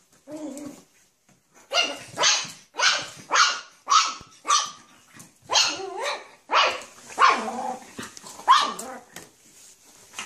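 A small puppy barking in a run of about a dozen short, sharp yaps, roughly two a second, after one brief low call about half a second in.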